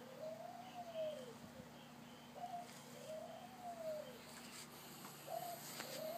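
A dove cooing: a short rising note then a long arched coo, a phrase repeated three times about every three seconds.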